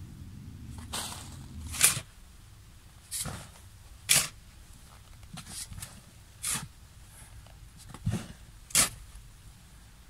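Shovel digging sandy soil: repeated short scrapes of the blade cutting in and the soil being thrown, about one a second, some with a dull thud.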